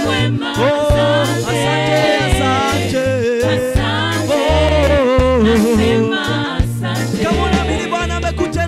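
Live gospel band playing a reggae song: voices singing over a bass guitar line, with keyboard and drums.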